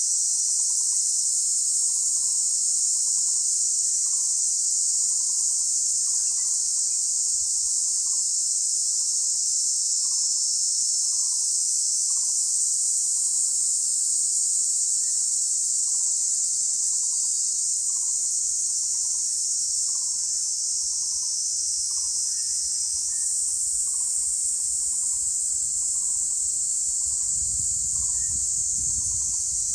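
Dense, steady, high-pitched insect chorus, with a soft note lower down repeating about every three-quarters of a second. A low rumble comes in near the end.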